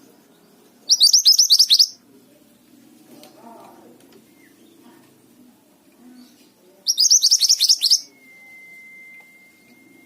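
Mantenan songbird singing in two loud, fast bursts of rapidly repeated high, downward-slurred notes, each lasting about a second and about six seconds apart. A long, steady high whistle follows near the end. A faint low murmur runs underneath.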